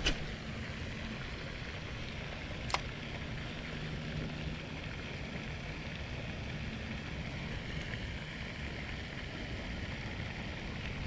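Steady outdoor background noise with a faint low hum, and a sharp click about three seconds in.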